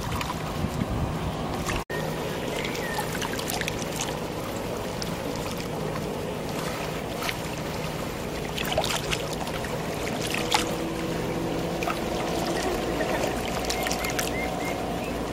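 Motorboat engine running steadily under a haze of wind and water noise, with a brief dropout about two seconds in.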